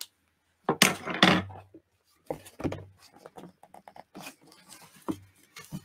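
Paper rustling and crinkling in short, irregular bursts as a stapled paper cover is tugged and worked loose from its staples by hand.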